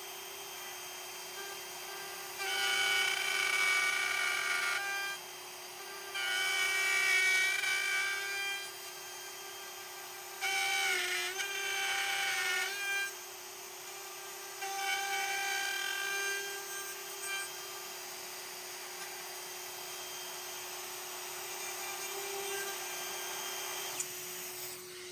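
Compact trim router with a flush-trim bit running steadily while routing a recess into a wooden gun stock through a template jig. Four louder bouts of cutting, each a few seconds long, come as the bit bites into the wood, and the motor dips briefly under load during the third.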